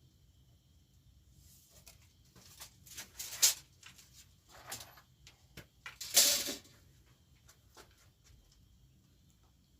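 Pieces of rough scrap wood being handled and set against each other, with scattered knocks and clicks and a few short scrapes. The loudest scrapes come about three and a half and six seconds in.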